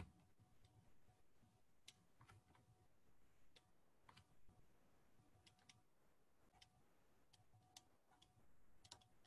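Near silence with faint, scattered clicks of a stylus tapping and stroking a drawing tablet as handwriting goes onto the screen.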